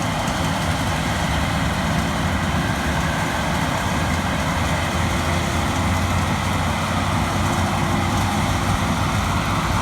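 Case IH 8230 combine running steadily while harvesting corn, a constant low engine hum with a few steady whining tones from the machine.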